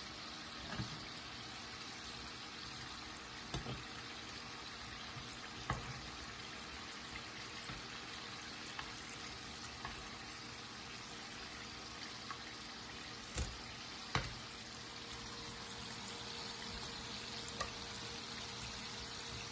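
Filo-pastry almond briouates frying in a pan of oil, a steady sizzle. A few sharp clicks come from the metal tongs and slotted spatula against the pan, the loudest two a little past halfway.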